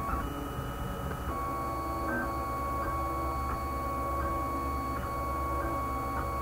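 Homemade 3D printer's stepper motors whining as the print head lays down a line of filament: steady tones with short pitched chirps about once or twice a second as the moves change, over a low hum.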